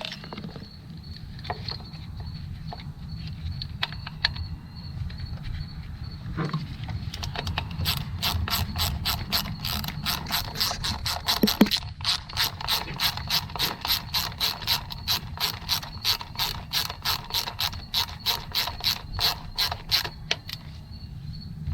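Hand ratchet with a 10 mm socket clicking as it runs down an ignition coil bolt: a few scattered clicks at first, then a steady run of clicks, about three a second, from about eight seconds in.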